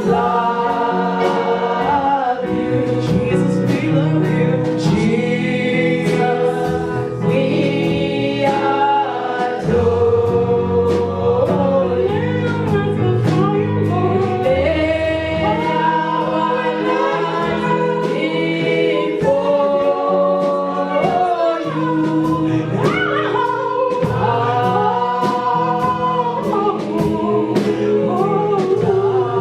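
Gospel worship song sung by a group of voices over band accompaniment, with a moving bass line and a steady beat.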